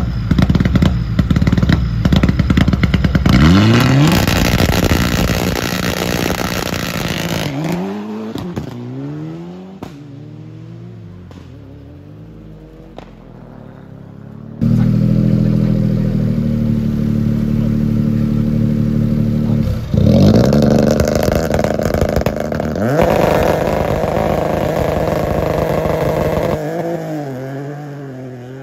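Rally car engine with anti-lag crackling and popping, then revving up and pulling away, fading into the distance. A second rally car then runs with a steady engine note, revs up hard about twenty seconds in and accelerates away through a gear change, fading near the end.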